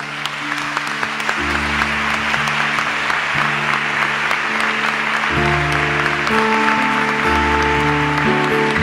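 Congregation and clergy applauding, the clapping swelling, over sustained keyboard chords that change a few times.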